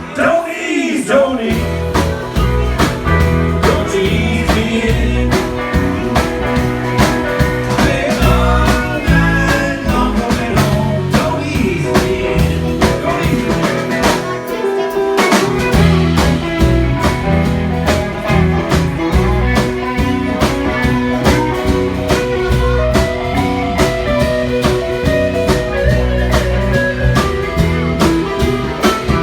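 Rock band music with electric guitar over bass and a steady drum beat. The bass and drums thin out briefly about halfway through.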